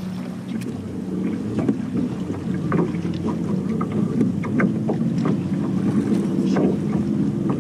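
Wind and water noise on a bass boat, with a steady low hum and scattered short splashes and knocks as a big bass is pulled in at the side of the boat.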